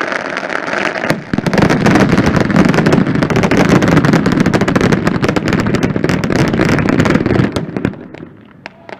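Firecrackers and salutes going off in a dense, rapid crackle of bangs that grows heavier and louder about a second in. The barrage then dies away to a few last pops near the end.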